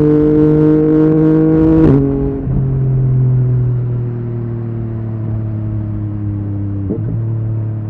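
Yamaha MT-09 three-cylinder engine through an Akrapovic exhaust, pulling with its pitch slowly climbing. About two seconds in the pitch drops suddenly with a short crack, like a quick gear change or throttle chop. The engine then runs on with its pitch slowly falling as the bike slows, with a brief break near the end.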